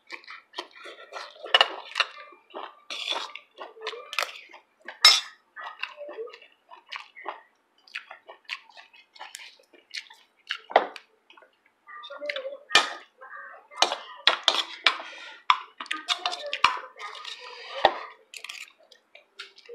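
Tableware at a meal: spoons and hands against ceramic bowls, making irregular short clinks and taps.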